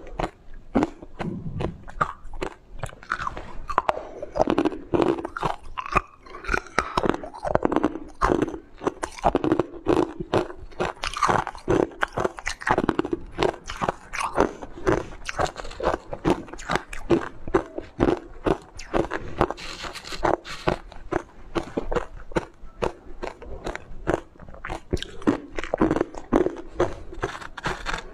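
Close-up crunching of chunks of purple coloured ice being bitten and chewed: a rapid, uneven run of sharp crunches, several a second, with no pause.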